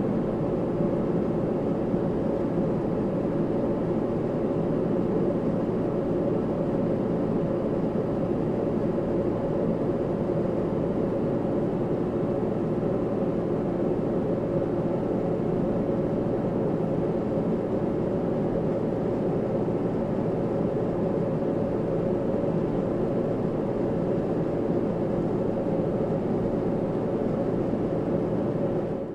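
Steady cabin noise inside a passenger jet in flight: a constant low rumble of engines and airflow with a faint drone of tones, unchanging throughout.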